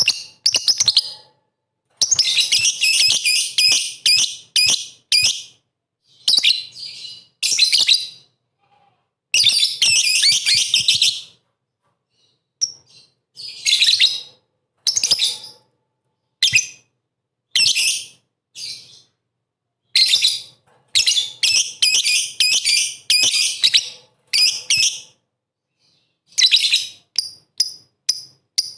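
Lovebird singing in rapid, high-pitched chattering phrases, some brief and some running several seconds, broken by short silences.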